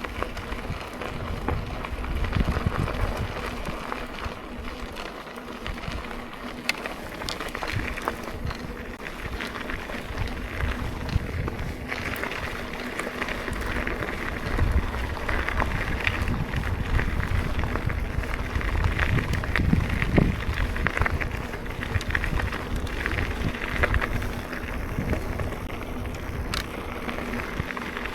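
Mountain bike rolling along, with steady tyre noise and gusting wind rumble on the rider's microphone.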